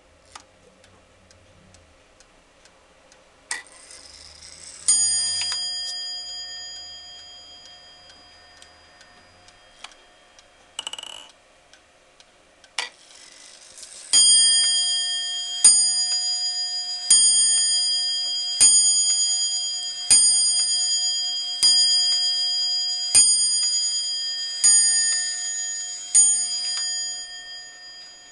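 Franz Hermle & Sohn Zaanse wall clock striking its bell: one strike about five seconds in, then a run of nine strikes about one and a half seconds apart that counts the hour, each ringing on and fading. The movement ticks faintly underneath.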